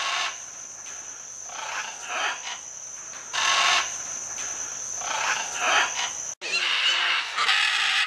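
Macaws squawking in harsh, irregular bursts over a steady high-pitched whine. A little after six seconds the whine cuts out and a denser run of squawks from a flock follows.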